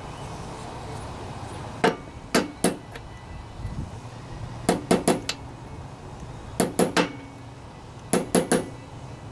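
Metal hammer tapping a steel seal installer sleeve to drive a crankshaft oil seal into a Tecumseh lawnmower engine's block: about fifteen sharp metallic taps in four short bursts of quick strikes. The seal sits cockeyed in its bore and is being pounded into place.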